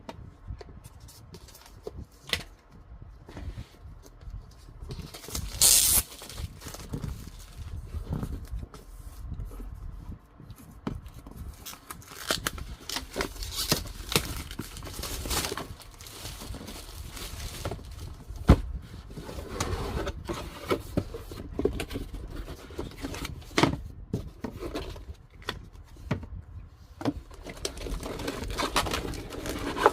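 Irregular handling sounds: scattered clicks and knocks with scraping and crinkling, and a louder rustling burst about six seconds in.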